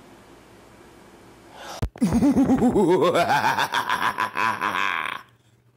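Quiet room tone, then about two seconds in a loud warbling, pulsing sound effect for the logo outro starts. It climbs in pitch for about a second, holds high, and stops suddenly about five seconds in.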